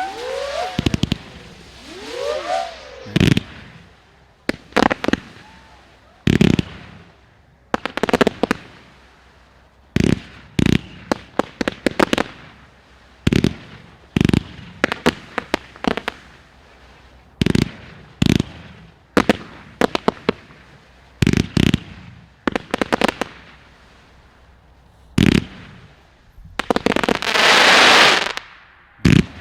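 Low-noise consumer fireworks going off: whistles rising and falling in pitch over the first few seconds, then a long run of sharp shot pops, some single and some in quick clusters, every second or two. Near the end comes a longer hissing crackle.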